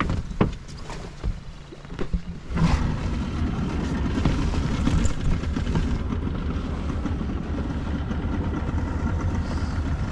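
Boat's outboard motor pull-started: a few sharp knocks, then the engine catches about two and a half seconds in and runs steadily.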